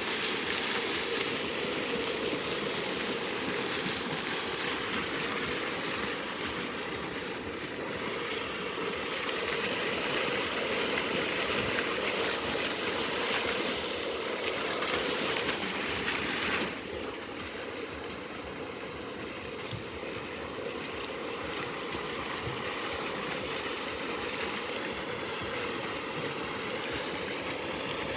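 Fountain water jets spraying and splashing down in a steady rush. About two-thirds of the way through the sound drops suddenly to a lower, softer rush.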